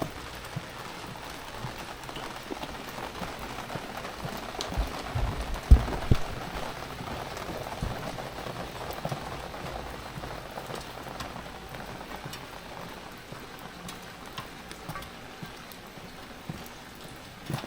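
Steady rain falling, with scattered drops ticking close by. A few loud, low thumps come about five to six seconds in.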